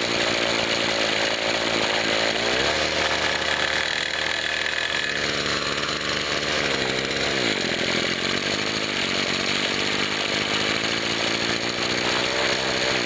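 1997 Husqvarna 24cc two-stroke string trimmer engine idling, then throttled up about three seconds in; the revs sag and glide back down to idle a few seconds later. This is the bog under full throttle that the owner traces to a bad carburettor diaphragm and a check valve that is not seating.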